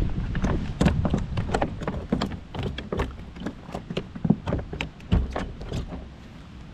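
Irregular knocks and taps, several a second, as a small largemouth bass is handled and unhooked aboard a plastic fishing kayak, with wind rumbling on the microphone in the first second.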